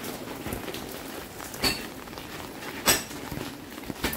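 Steady hiss of rain, broken by two sharp knocks about a second apart, the second the loudest.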